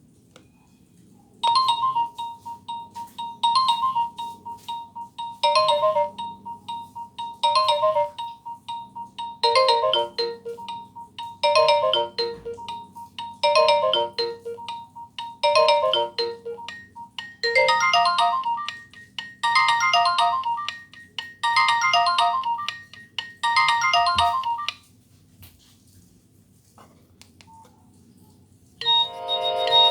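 Nokia 6085 ringtone playing from the phone's speaker: a short melody of several notes at once, repeating about every two seconds and growing fuller about halfway through. It stops about 25 seconds in, and a different tone starts just before the end.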